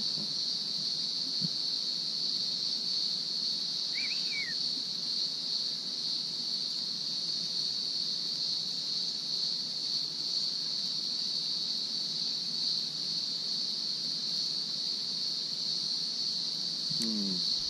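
Steady high-pitched drone of insects, unbroken and even throughout, with one short bird chirp about four seconds in.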